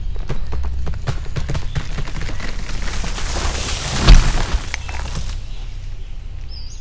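A sound effect: a crackling whoosh that swells and peaks in one sharp boom about four seconds in, then fades.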